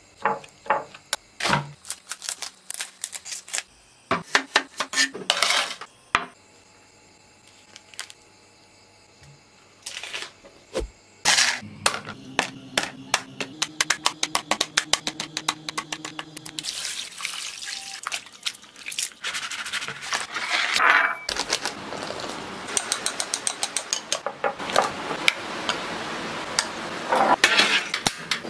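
Kitchen preparation sounds: a spoon clinking and scraping in a small ceramic bowl as seasonings are mixed, then raw chicken wings handled in a plastic colander with water splashing over them, a dense run of rapid clatter and splashing through the second half.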